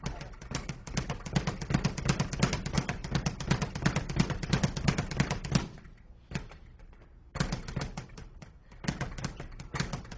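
Leather speed bag being punched in a fast, even rhythm, each hit and rebound off the platform giving a sharp rattling tap. The hitting stops for about a second and a half a little past halfway, then starts again.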